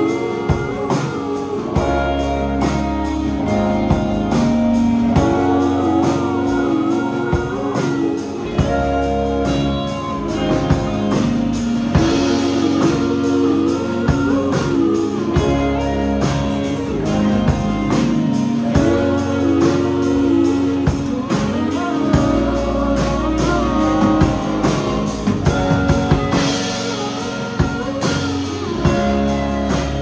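Live indie folk-rock band playing a song: electric and acoustic guitars, keyboard and drum kit, with singing over a steady beat.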